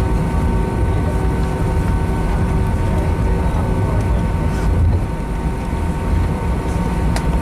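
Airbus A319 cabin noise heard from a window seat: the steady rush of the IAE V2500 turbofan engines and airflow, with a few steady whining tones over a deep rumble.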